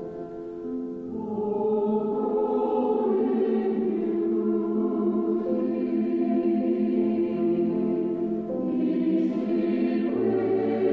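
Church choir singing a slow liturgical piece in sustained harmony, the voices holding long chords and swelling louder about two seconds in.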